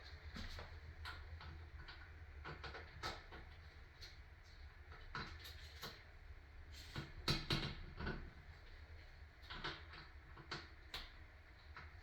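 Scattered faint clicks and light knocks of nuts and washers being fitted and tightened onto a toilet's floor closet bolts.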